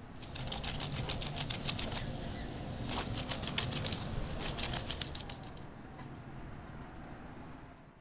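A rapid fluttering clatter of many quick ticks a second, in two spells that start about half a second in and die away after about five seconds.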